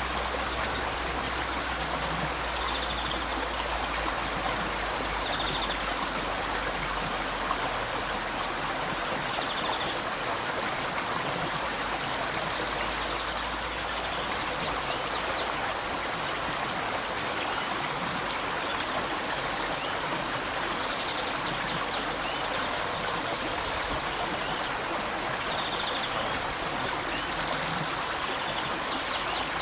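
A river flowing: a steady, even rush of water with no pauses or changes.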